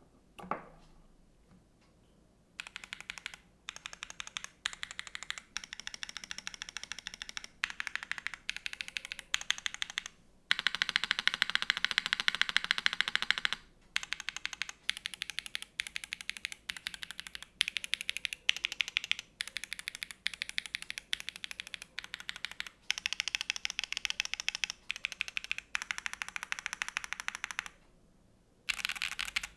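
Custom gasket-mounted mechanical keyboard with lubed Gateron Type R tactile switches, an aluminium plate and GMK Olivia keycaps being typed on. Quick runs of keystrokes start about two and a half seconds in and are broken by short pauses, with the fastest, densest run near the middle.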